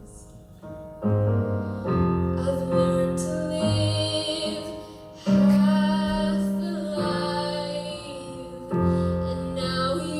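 A woman singing a slow ballad with piano accompaniment, long held notes with vibrato over sustained piano chords.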